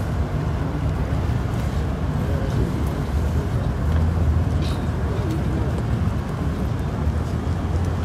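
Steady low rumble with faint voices in the background.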